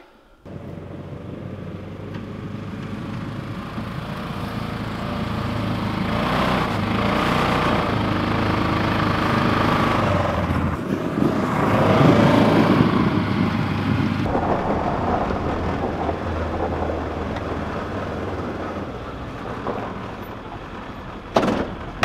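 Polaris Ranger XP 900 UTV, its bed loaded with firewood, driving past: its engine grows steadily louder as it approaches, is loudest about twelve seconds in as it passes close by, then drops and runs on more quietly.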